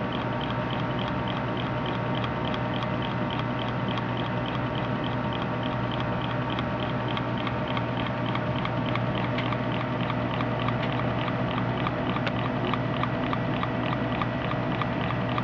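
Liney Machine Butterfly model engine ticking over on air from a low-output aquarium pump: a rapid, even ticking, several ticks a second, over a steady low hum.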